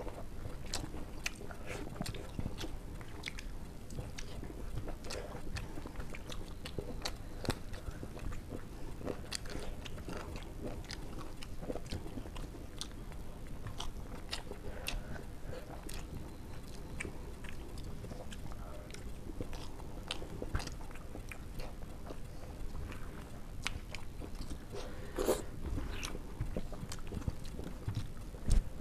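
Two people eating rice and egg curry with their hands: close-up chewing and mouth smacks with many small clicks throughout. A sharper sound comes about 25 seconds in, and a thump near the end is the loudest sound.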